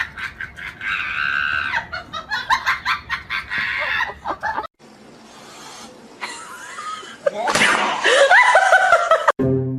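People laughing and shrieking, with a louder, higher bout near the end.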